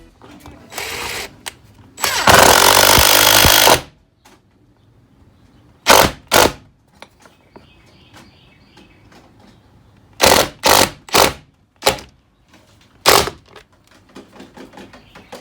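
Power tool driving fasteners into the garage door brackets and tracks: one long run of a couple of seconds near the start, then several short pulses.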